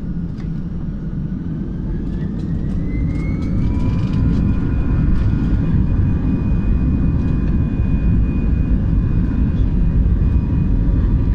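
Jet airliner's turbofan engines spooling up for the takeoff roll, heard from the cabin beside the wing. A whine rises in pitch over a couple of seconds and then holds steady over a loud, low rumble that grows stronger.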